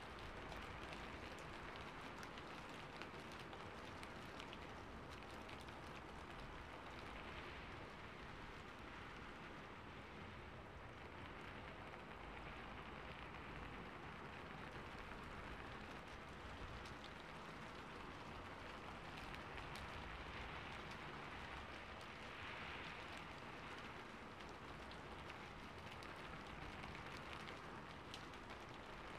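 Faint crackling and rustling of origami paper being handled and creased, over a steady background hiss.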